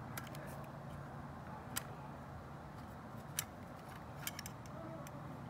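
A handful of faint, scattered clicks of small metal clutch parts being handled, over a low steady hum.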